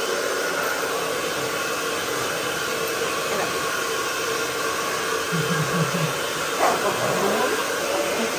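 Hair dryer blowing steadily, an even rushing hiss with a constant hum in it.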